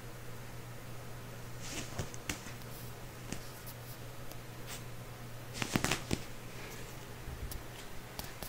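Soft rustling and scattered small clicks, with the loudest cluster a little past the middle, over a steady low hum.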